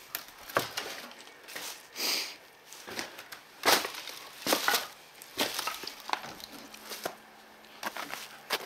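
Footsteps and irregular knocks, cracks and crunches on old wooden floorboards and debris.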